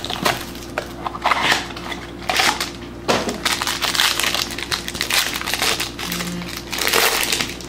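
Foil wrapper of a trading card pack being torn open and crumpled by hand, a run of irregular crinkling rustles.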